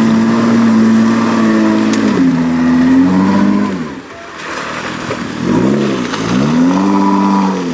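Jeep Wrangler engine working under throttle on a muddy off-road climb, holding steady revs, then dropping in steps about two and four seconds in, and falling and rising twice in quick swoops near the end.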